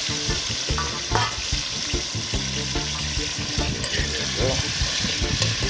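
Beef cubes sizzling in hot oil in a metal cooking pot, with the scrape and knock of a knife stirring them against the pot.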